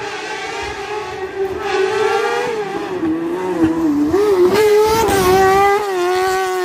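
Slalom race car engine revving hard, its pitch climbing and dipping several times through gear changes and lifts, and growing louder after the middle.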